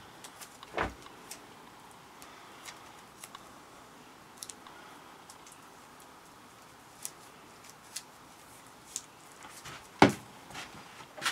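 Sparse light clicks and crackles of fiber tape being pulled and wrapped around a LARP sword's fiberglass core, with a sharp knock about ten seconds in.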